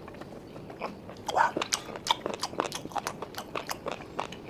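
Close-miked chewing of steamed snail meat: many short wet mouth clicks and smacks, several a second.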